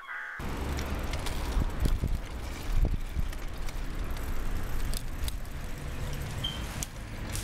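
Steady low rumble of tyres and wind from a bicycle rolling along a road, with a few light ticks.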